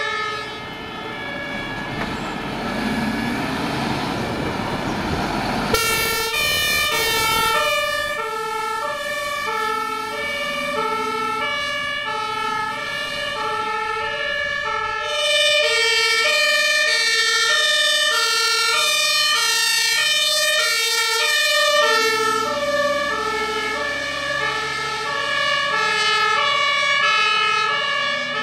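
German fire trucks' two-tone Martinshorn sirens sounding on an emergency run, several two-note sequences overlapping out of step. A heavy truck's engine and tyres are loud in the first few seconds, rising as it pulls away, with the engine coming back low near the end.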